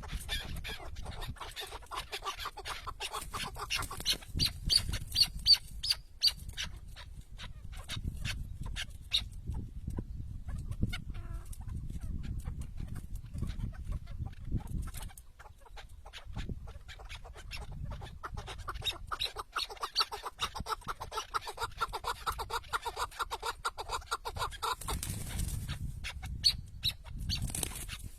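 Chukar partridges calling in long runs of rapid clucking notes, densest a few seconds in and again from about two-thirds of the way through.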